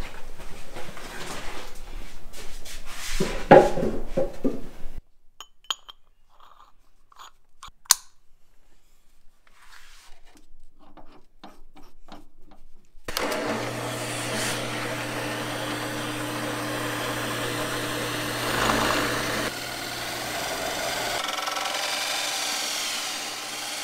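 Knocks and clicks of handling tools and wood for the first few seconds, the loudest a sharp knock about three and a half seconds in. Then, after a quieter stretch, a power drill runs steadily for the last ten seconds or so, cutting the cowl hole in the top of a Dorade box, its pitch shifting about two seconds before the end.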